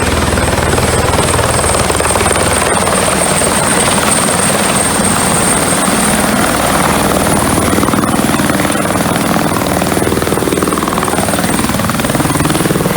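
Helicopter running steadily, a loud, dense rotor and engine noise with a steady high-pitched whine over it.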